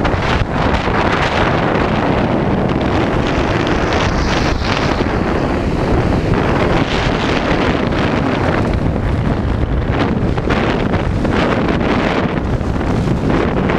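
Loud, steady wind rush on the microphone of a camera skiing fast down a giant slalom course.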